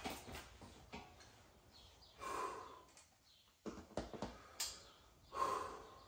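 Forceful breathing of a man bench pressing a heavy barbell of about 245 lb: two hard, breathy exhales about three seconds apart as he strains through the reps, with several light clicks and knocks scattered between them.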